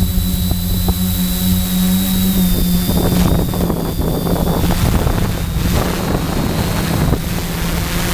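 Quadcopter's four brushless motors and propellers droning steadily with a thin high whine, heard from the camera mounted on the craft. From about three seconds in, wind noise on the microphone rushes in over the drone.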